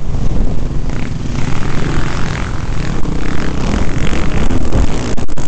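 Off-road motorcycle engine running loud under throttle, heard close up from the rider's helmet. A few sharp knocks come about five seconds in.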